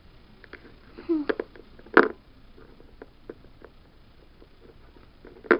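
Scattered light taps and clicks of small plastic toy figures being handled and set down, with one louder knock about two seconds in and another near the end.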